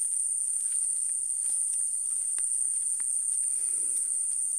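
A steady, high-pitched night chorus of crickets, with a few faint footsteps on grass.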